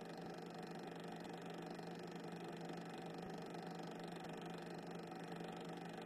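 Faint steady hiss with a low hum and no distinct events: the background noise of a soundtrack with no recorded sound.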